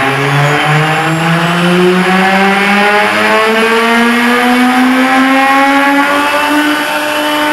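CNC router spindle motor whining as it engraves an MDF panel, the whine rising slowly and steadily in pitch over a rough cutting hiss.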